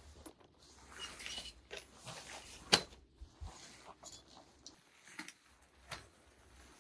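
Handling noises: scattered light clicks and rustles, with one sharp knock a little under three seconds in.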